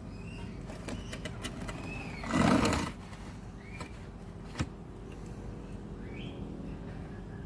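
Short bird calls in the background, several times. About two and a half seconds in, a loud, rough burst lasting under a second, and near the middle a single sharp click.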